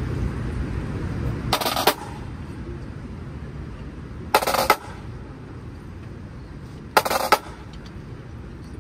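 Pipe-band snare drums playing three short rolls about two and a half seconds apart, each with an accented start and finish, in a slow cadence. A low rumble of crowd and city runs underneath.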